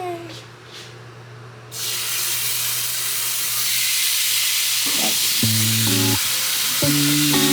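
Marinated whole branzino laid on a hot grill pan starts sizzling suddenly about two seconds in, a loud steady hiss. Background music comes in over it near the end.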